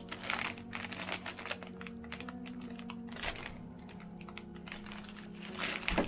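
A Funko Mystery Minis blind box and its packaging being handled and opened: scattered crinkling and clicking, with a louder rustle near the end, over soft background music.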